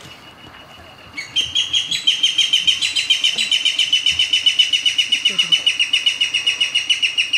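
Okinawa rail calling: a loud, rapid series of evenly repeated high notes, about seven a second, starting about a second in and keeping on without a break.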